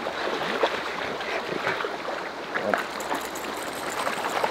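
Shallow, rocky river running steadily over stones, with a few short splashes.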